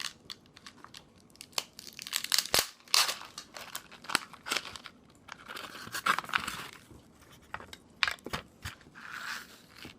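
Plastic instant-ramen packet crinkling while the dry, uncooked noodle block is handled and cracked: an irregular run of sharp snaps and rustles.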